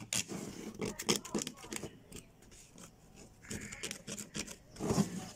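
A metal blade scraping caked, dried soil off a dug-up revolver: quick rasping strokes, pausing about two seconds in and resuming near the end.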